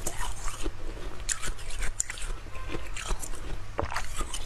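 Frozen milk ice being bitten and chewed: a run of irregular crisp crunches and crackles as the ice breaks up in the mouth.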